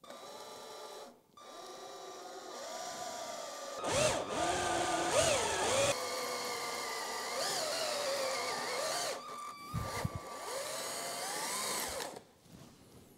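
Power drill boring a hole through a metal plate, its motor whine rising and falling in pitch as the speed changes. It pauses briefly about a second in and again near ten seconds, and stops near the end.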